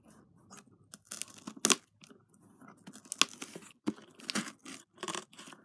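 Scissors cutting along the packing tape on a cardboard box: an irregular string of sharp snips and crackles as the blades work through the tape and cardboard.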